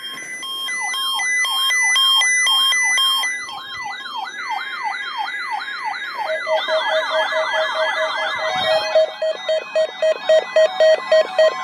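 Several NOAA weather alert radios sounding their alarms at once, set off by the weekly test: overlapping warbling siren tones rising and falling, with steady beeps at several pitches. A burst of the buzzing SAME data header sounds under them about four seconds in. Later a faster warble and a lower beep pulsing at two to three a second join.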